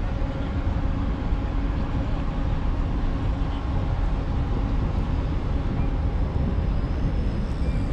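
Steady city street noise: an even low rumble, with a faint steady hum like an idling engine running through it.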